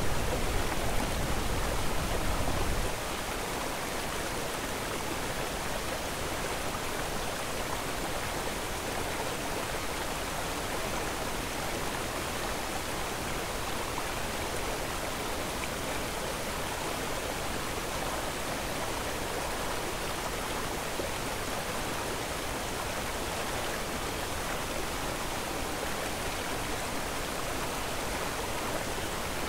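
A steady, even rushing noise with no distinct events, like running water or hiss. A deeper low rumble under it cuts off about three seconds in, leaving the plain steady rush.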